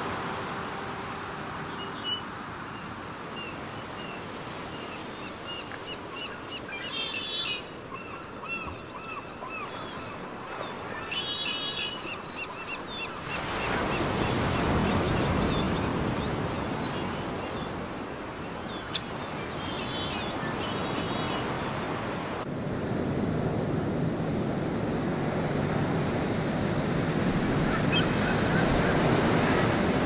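Sea and wind noise on open water, growing louder past the middle, with thin high-pitched calls and short chirps over it in the first half and again briefly later.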